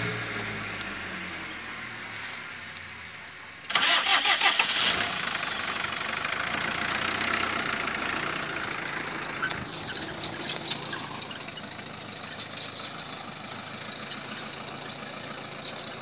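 Small pickup truck's engine running as the truck pulls away. The engine noise jumps sharply about four seconds in, then runs steady with scattered light rattling clicks.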